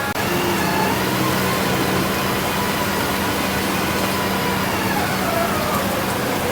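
Hydraulic rotary drilling rig running under load: a steady diesel engine hum with a machine whine that slides downward in pitch near the end.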